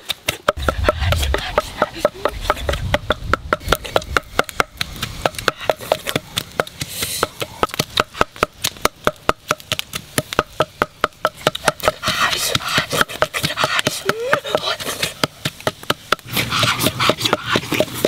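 Wooden pestle pounding chilies and spices in a wooden mortar: a fast, steady run of hollow knocks, about five a second.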